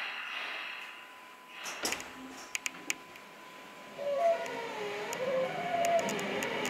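Tokyo Metro Namboku Line subway train: a burst of hissing air, then a few sharp clicks and clunks, then from about four seconds in a louder wavering whine with running noise as the train gets under way.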